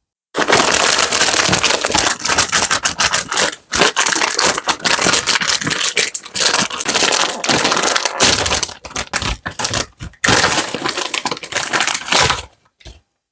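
Sweets being dropped and poured into a platter: a dense, loud run of rapid clicking and crackling with a few short pauses, stopping about a second before the end.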